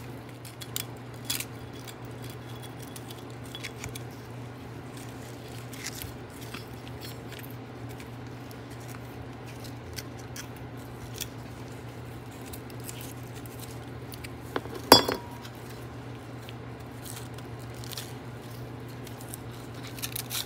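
Small handling noises as a loudspeaker field coil is worked out of its metal can by gloved hands: light clicks, ticks and rustles of metal and paper, with one sharp metallic knock about fifteen seconds in. A steady low hum runs underneath.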